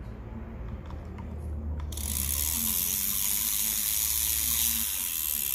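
Fishing reel being cranked by hand: a steady mechanical whirr of its gears that starts suddenly about two seconds in.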